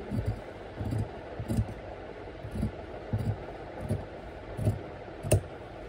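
Scissors snipping through fabric as a sleeve is cut out along a chalk line: a steady run of about eight short snips, roughly three every two seconds, the sharpest one near the end.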